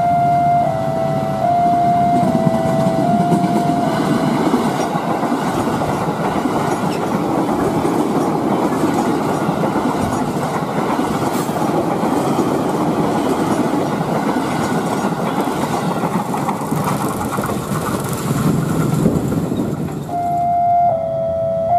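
Electronic level-crossing alarm sounding a two-tone alternating signal, about two notes a second, for the first few seconds. Then a commuter electric train passes close by with a continuous wheel-on-rail rumble and clatter until about 20 seconds in. The two-tone alarm returns near the end.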